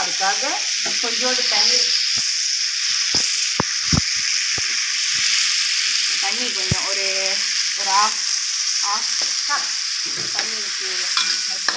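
Tofu cubes and vegetables sizzling steadily in oil in a metal wok, stirred with a steel spoon that scrapes and clicks against the pan now and then.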